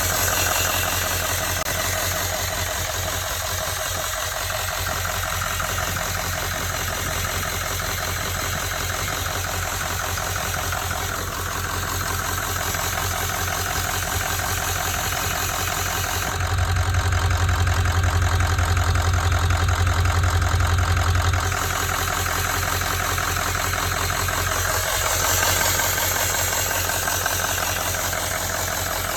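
Turbocharged engine idling steadily, with a hissing noise from around the turbocharger over a low rhythmic hum. Past the middle, for about five seconds, the low hum grows louder while the highest part of the hiss drops away.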